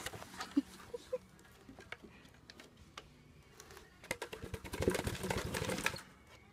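Rapid clattering for about two seconds, starting about four seconds in: a chocolate Labrador with a clear plastic container over its head moving on wooden deck boards.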